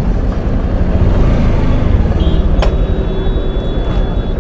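Road traffic at a busy city junction: vehicle engines running with a dense, steady rumble. A sharp click comes a little past halfway, and a steady high tone is held for about two seconds in the second half.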